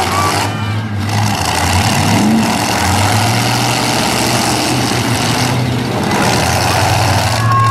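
Demolition derby pickup trucks' engines running loud through open exhaust stacks, with one engine revving up about two seconds in.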